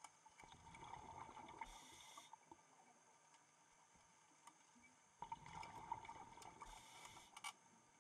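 Faint underwater scuba breathing through a regulator: twice, a stretch of bubbling and gurgling ending in a short hiss, a few seconds apart.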